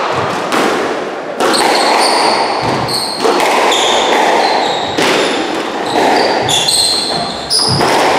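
Squash rally: the ball struck by rackets and hitting the walls, a sharp impact every second or two. Short high shoe squeaks on the wooden court floor come between the shots.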